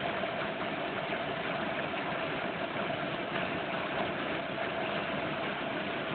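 Helicopter engine and rotor noise heard from inside the cabin in steady cruising flight, an even noise with one constant tone running through it.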